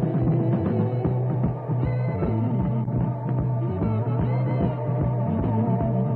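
Rock music with a steady beat, laid over the racing footage.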